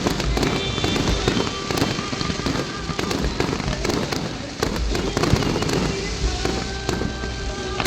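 Fireworks popping and crackling in a dense, rapid stream of sharp reports.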